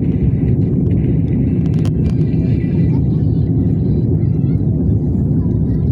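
Steady, loud rumble of an airliner's engines and rushing air heard inside the passenger cabin during the climb after takeoff, with faint voices under it.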